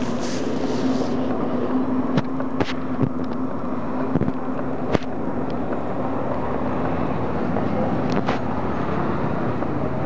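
City street traffic: a steady wash of car and engine noise, with a low hum through the first half and a few sharp knocks or clicks.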